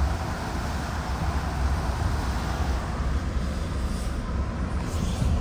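Road noise heard inside the cab of a Ford F-150 Lightning electric pickup on a wet road: a steady low rumble with tyre hiss, and no engine note. The hiss eases somewhat about three seconds in.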